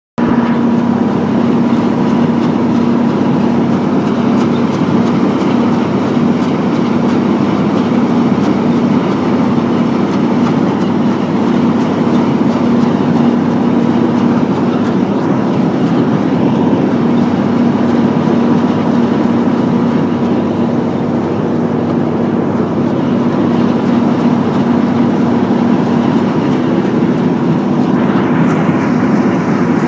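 Massey Ferguson combine harvester running steadily while harvesting: a loud, even mechanical drone with a constant hum. A hissier, brighter noise joins near the end.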